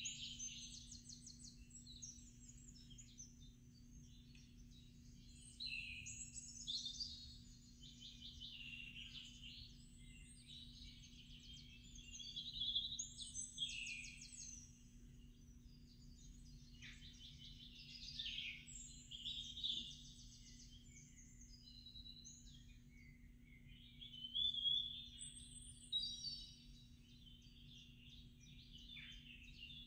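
Songbirds singing and chirping, a dense overlapping run of trills and short calls, over a faint steady low hum.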